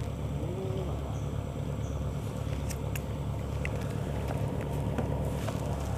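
A small engine runs steadily with a low, even hum, with a few faint ticks over it.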